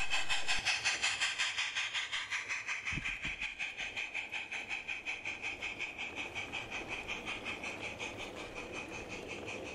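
Small live-steam model narrow-gauge locomotive (16mm scale, 45 mm gauge) pulling away at speed: a quick, even chuff of about five or six beats a second over a steady hiss of steam, fading as the train runs off, with the coaches rolling by on the track.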